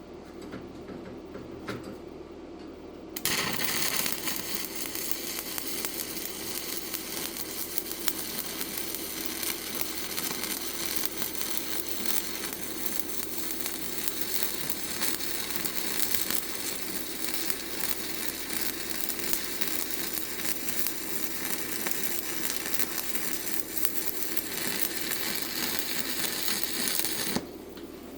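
Stick-welding arc with a 7018 rod, struck about three seconds in and burning with a steady crackle and sizzle while a weld pass is run, then broken off abruptly about a second before the end.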